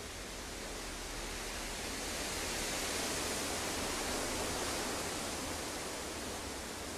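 A steady rushing noise with no tune or rhythm, swelling to its loudest about halfway through and then easing off.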